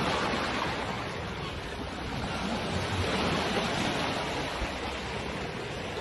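Sea waves breaking and washing up a pebble beach: a steady rush of surf that swells again about halfway through.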